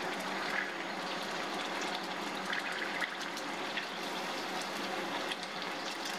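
Sausages sizzling in hot fat in a frying pan: a steady hiss with small crackles and a few light clicks.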